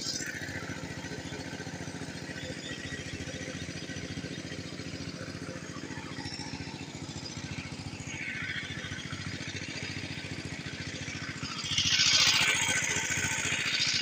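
A small engine running steadily at an even pitch, with a louder hissing noise over it for about the last two seconds.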